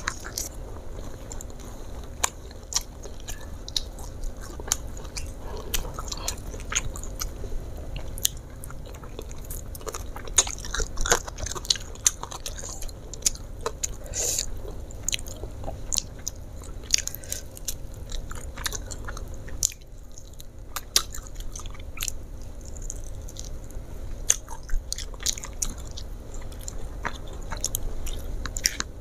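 Close-up chewing and crunching of crispy fried chicken and rice, with frequent sharp, irregular mouth clicks and crunches.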